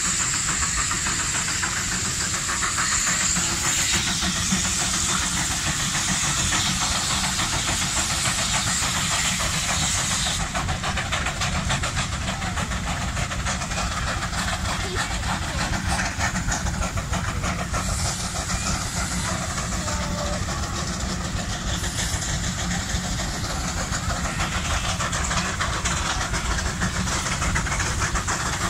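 Steam traction engines running, a big Case among them, with a steady hiss of escaping steam that cuts off abruptly about ten seconds in.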